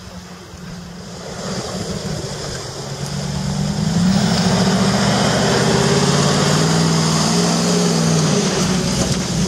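Land Rover's engine pulling the truck slowly through deep muddy ruts at low revs. It grows much louder as the vehicle comes up close, then runs loud and steady from about four seconds in.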